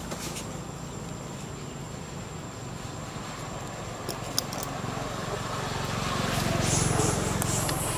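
Steady low hum of a motor vehicle engine running nearby, swelling louder about six to seven seconds in, with a few short high chirps near the end.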